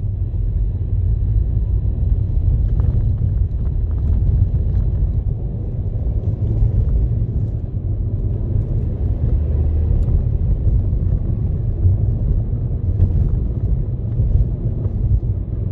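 Steady low rumble of a moving car heard from inside the cabin: engine and tyre noise while driving along a city street.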